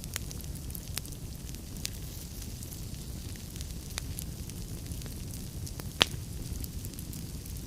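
Wood fire burning in a fireplace: a steady low rumble with scattered sharp crackles, the loudest a single pop about six seconds in.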